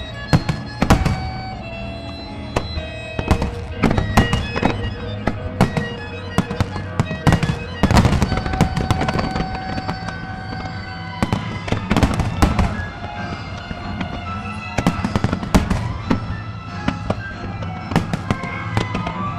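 Aerial firework shells bursting: many sharp bangs and cracks, coming in clusters every few seconds, over music playing with the display.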